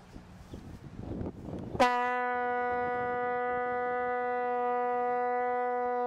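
Plastic vuvuzela horn blown hard: one steady, very loud note rich in overtones, starting abruptly about two seconds in and held without wavering.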